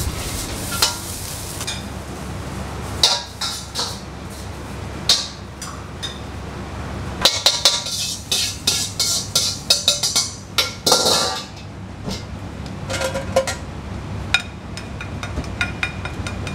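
A metal ladle clanking and scraping against a wok as fried rice is tossed and scooped out, in irregular sharp strikes that come thickest in the middle, over the steady rush of the gas wok burner. Near the end, lighter clinks as the rice is packed into a ceramic bowl.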